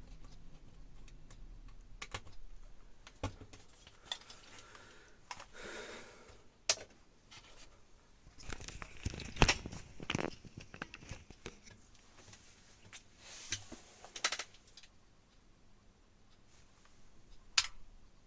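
Irregular clicks, taps and rustling of hands handling small hard objects, with three sharper knocks, about a third of the way in, around halfway and near the end.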